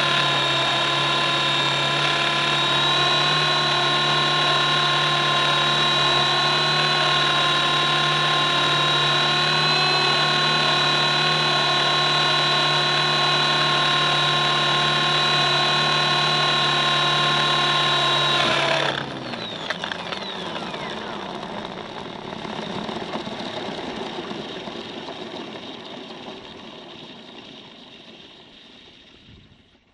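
E-Razor 450 electric RC helicopter, heard from a camera mounted under it: the motor and drive gears whine at a steady pitch. About two-thirds of the way in the power is cut, the whine falls away, and the rotor's whoosh winds down and fades.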